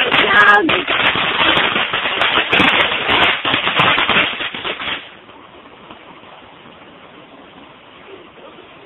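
Consumer ground fireworks going off in a fast run of crackling pops and bangs that stops suddenly about five seconds in, leaving only a faint steady hiss.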